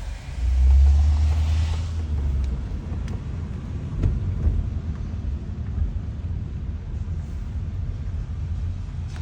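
Car driving, a steady low engine and road rumble heard from inside the cabin, swelling loudly about half a second in and easing off over the next two seconds.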